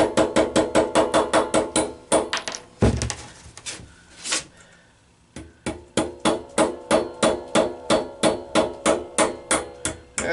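Claw hammer tapping a wood screw into a stuck shear pin on a lawn mower engine's shaft, rapid ringing metal strikes about four or five a second. The tapping stops for about three seconds midway, with one heavier knock, then resumes.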